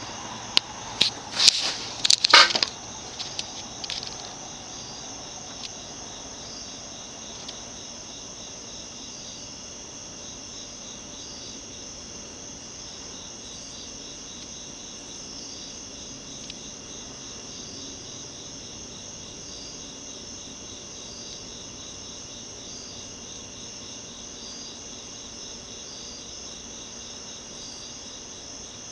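Insects chirping in a steady, high-pitched, pulsing chorus, with a few sharp clicks and knocks in the first couple of seconds.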